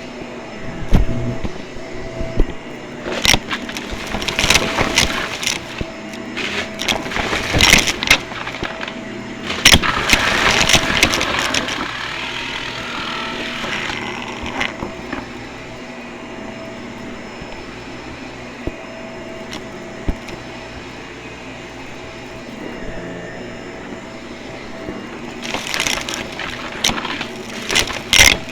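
Vacuum cleaner running with a steady motor hum, with many bursts of clattering and crackling, thickest in the first half and again near the end.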